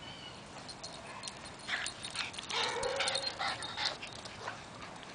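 Maltese dog giving a run of short, high-pitched whining yips and squeals, its monkey-like "talking", from about a second and a half in to about four seconds in.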